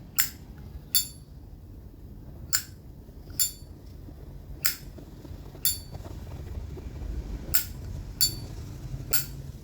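Vintage 1974 Zippo lighter's lid being flipped open and snapped shut, about nine sharp metallic clinks with a short bright ring, roughly one a second. The clink is the standard Zippo sound, a sign of an original lid and hinge in good order.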